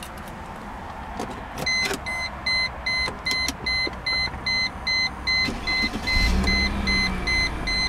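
The 1999 Mercedes-Benz E320's dashboard warning chime beeps rapidly and evenly, about three beeps a second, after a few clicks of the ignition key. About six seconds in, the starter cranks briefly and the 3.2-litre V6 fires right up, then settles to idle under the continuing chime.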